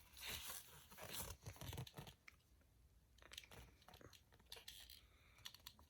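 Near silence with a few faint rustles and clicks, bunched in the first two seconds and again towards the end.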